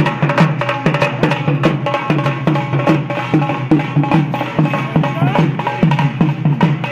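Music with a fast, steady drum beat, many strikes a second, over pitched melody lines.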